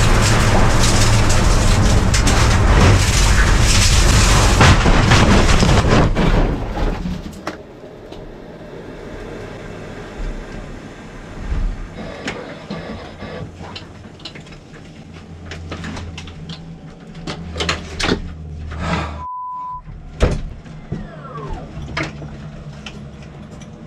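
Tesla race car crashing off the road and rolling onto its side: a dense run of heavy impacts, scraping and rattling for about six and a half seconds, then it stops abruptly. After that the wrecked car sits still with only scattered clicks and creaks, a short electronic beep and a brief falling whine.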